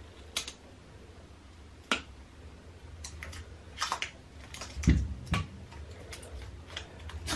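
Diagonal side cutters snipping the wires on a power bank's battery pack: a series of sharp clicks about a second apart. There is a louder, duller thump about five seconds in, followed by a few lighter clicks.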